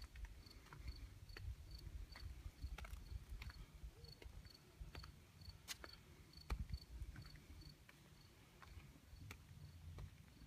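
Faint, high-pitched insect chirping repeated steadily at about three pulses a second, with scattered light clicks and a low rumble underneath.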